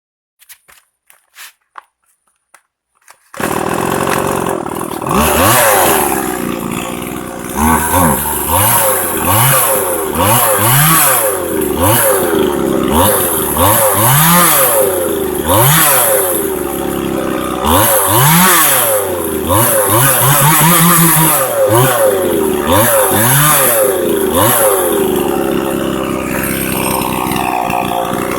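Stihl MS 180 two-stroke chainsaw engine. After a few faint clicks it starts running about three seconds in, and its pitch rises and falls over and over as the throttle is blipped. Near the end it settles to a steadier run.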